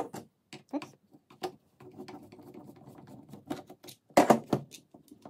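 Plastic housing of a Makita 6317D cordless drill being worked open by hand: a few light clicks, a faint steady hum for about a second and a half, then a loud plastic clatter about four seconds in as the clamshell halves come apart.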